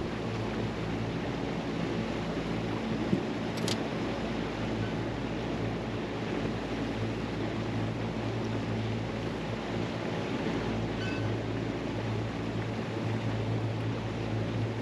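A boat's engine running steadily, a low hum under wind and water noise, with a single short knock about three seconds in.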